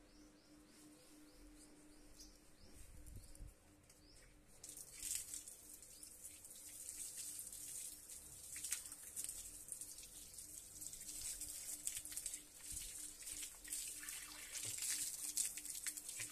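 Water running from an outdoor wall tap and splashing onto a concrete floor, starting about four seconds in, as a man washes his feet and then his hands under it.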